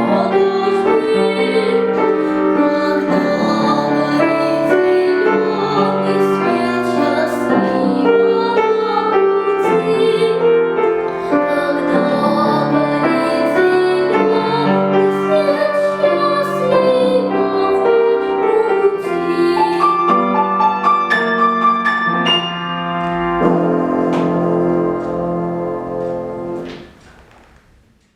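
A young girl singing in classical vocal style with piano accompaniment. The music settles onto held notes and dies away near the end.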